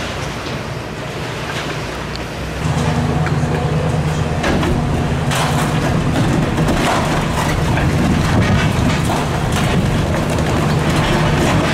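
Excavator diesel engine running under hydraulic load, rising in level about two and a half seconds in, while its demolition crusher jaw bites into a concrete wall with repeated cracking and crumbling of concrete.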